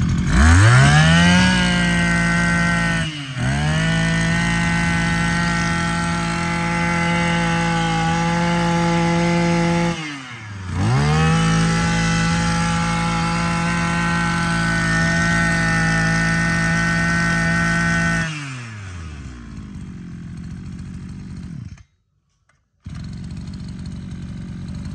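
Maruyama 26cc two-stroke brush cutter engine revved up about a second in and held at high speed, with a brief dip near three seconds and another drop and climb near ten seconds. The throttle falls off near eighteen seconds and the engine runs down.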